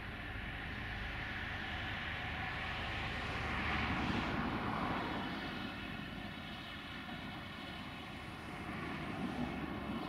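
Diesel engines of heavy tipper trucks running, a steady drone that swells to its loudest about four seconds in and then eases.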